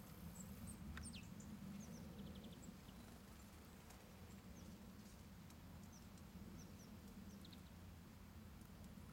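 Faint, thin high-pitched calls and chirps of small songbirds, short and scattered, with a quick run of ticks about two and a half seconds in. A steady low rumble lies underneath.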